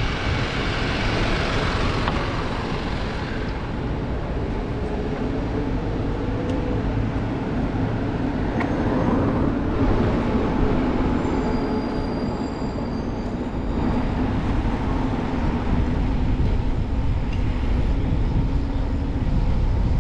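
Street traffic heard from a moving bicycle in a city centre: a dense low rumble, with a steady low vehicle engine hum coming in about a third of the way through.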